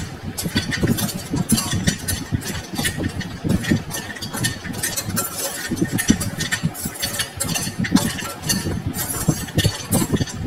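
Steel spatula stirring and tossing crisp fried gavvalu around a kadai, with quick irregular scrapes and clatters as the hard pieces knock against the pan.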